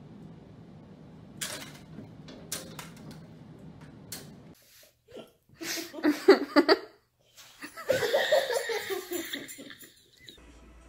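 A few sharp clicks over a low hum, then a person laughing in quick bursts, in two spells about a second and a half apart.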